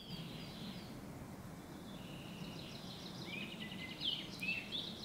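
Forest ambience with small songbirds chirping and singing faintly in the background, their short high phrases coming more often after about three seconds in.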